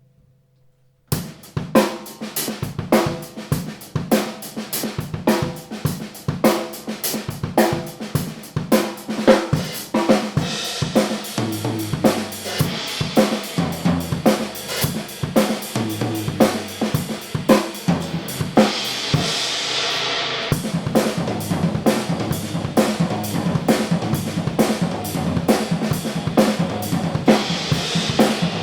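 Birch-shell Liberty drum kit played in a steady groove on bass drum, snare, hi-hat and cymbals, heard through a GoPro camera's built-in microphone with no effects. The playing starts about a second in after a brief silence, and from about ten seconds in the cymbals ring out more, with a loud crash swell a little before twenty seconds.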